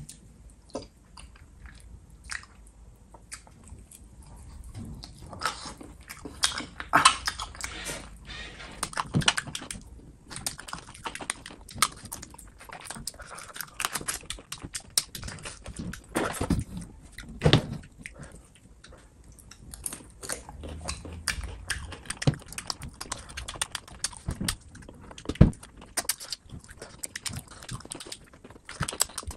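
A person chewing food close to the microphone, with many irregular clicks and smacks from the mouth.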